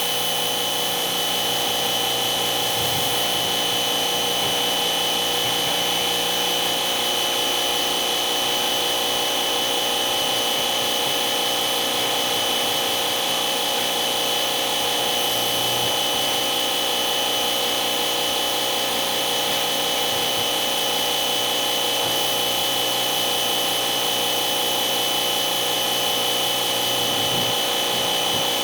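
A small electric motor running steadily and without a break, with a constant high whine.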